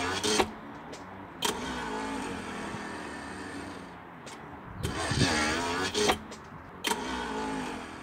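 Sterndrive power trim and tilt pump motor running in several short runs as the outdrive is raised and lowered, its whine bending in pitch under load, with a sharp click at each start and stop.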